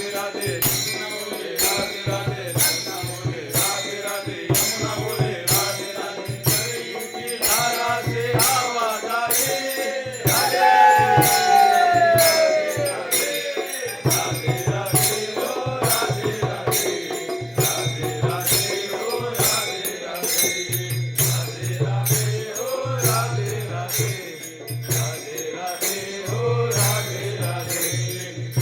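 Instrumental interlude of a devotional bhajan: a steady percussion beat with a rattling shaker-like sound and a low bass note, and a melody line that rises and falls about ten seconds in.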